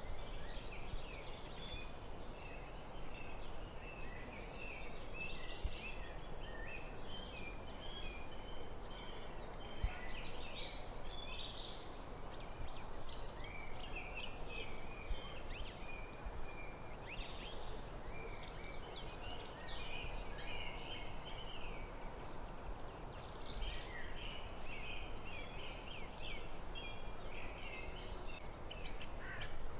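Forest birds chirping and singing continuously, many short overlapping calls, over a steady low background hiss.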